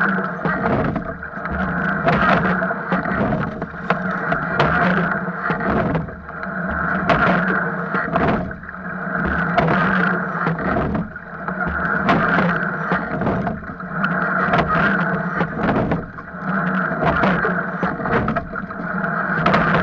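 Rowing shell under way with the crew rowing: water rushing along the hull and oars knocking in their oarlocks. The sound swells and eases with each stroke, about one stroke every two and a half seconds.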